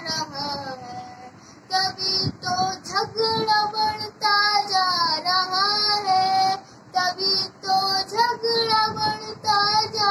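A young boy singing a devotional song solo, in phrases with some long held, wavering notes and short pauses for breath between them.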